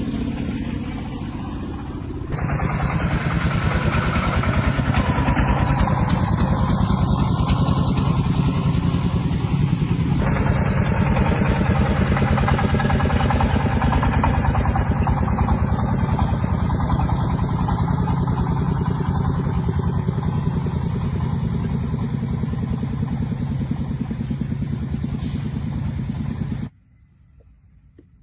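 Tractor engine running steadily with a rapid, even pulse; the sound cuts off abruptly near the end.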